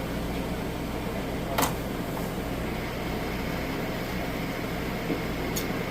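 A steady machine hum: a low drone under an even, fan-like hiss. It is broken by a short click about a second and a half in and another near the end.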